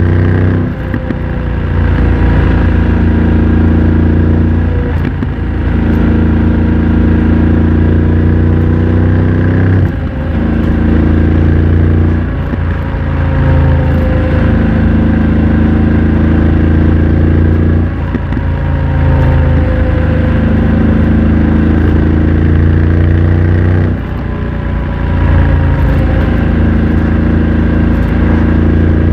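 BMW F900 XR's parallel-twin engine through a MIVV X-M1 aftermarket exhaust, running loud while riding. The engine note rises, breaks briefly and picks up again about six times as the bike shifts and rolls off and on the throttle.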